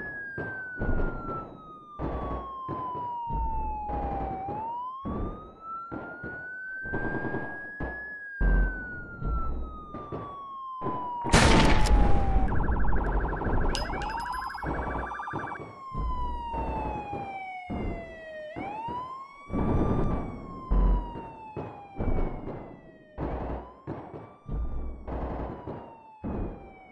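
Police-style siren wailing in long sweeps, each falling slowly and then rising quickly, over a run of heavy percussive hits with deep bass. A loud crash about eleven seconds in is followed by a couple of seconds of rapid beeping.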